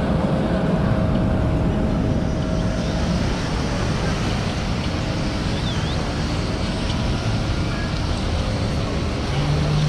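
Beach ambience: a steady wash of wind buffeting the microphone and surf breaking on the shore. A low steady hum comes in near the end.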